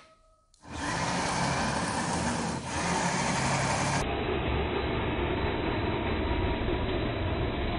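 Redcat Gen8 Scout II RC crawler's electric motor and drivetrain whirring steadily as its snow-chained tyres churn through deep snow. The sound starts under a second in, after a short near-silent gap, and changes character about halfway through.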